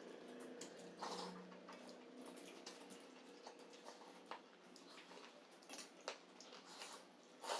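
Faint, scattered clicks and small taps of people eating, with a slightly louder click near the end.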